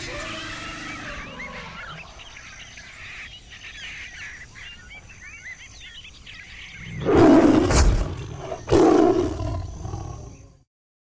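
Birds chirping softly over a quiet outdoor bed, fading, then a tiger roars loudly twice, about seven and nine seconds in, before the sound cuts off.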